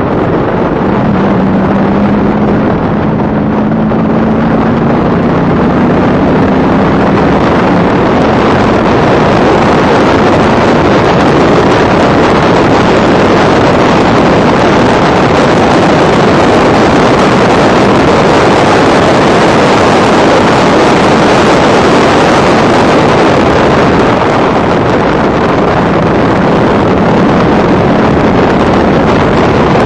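Factory Five Cobra replica race car's V8 running hard, heard onboard at racing speed, buried in heavy wind rush on the microphone. A low engine tone climbs slightly over the first few seconds.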